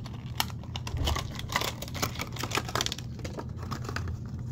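A 1:64 diecast car's box and plastic packaging being opened and handled: a rapid, irregular run of clicks and crackles, over a steady low hum.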